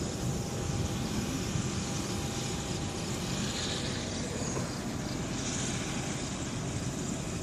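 Combine harvester's engine running steadily in the field, a continuous even rumble and hiss with a faint steady tone.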